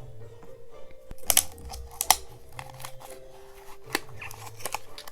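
Packaging of a small cardboard mystery pin box being opened by hand, with a few sharp snips and some tearing and crinkling. Soft background music plays underneath.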